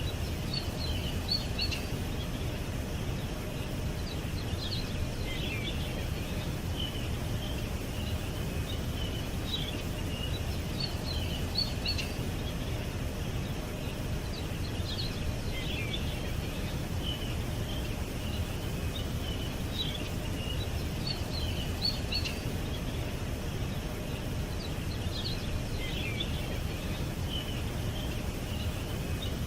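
Small birds chirping in short high twittering bursts that come in clusters every few seconds, over a steady low background rumble.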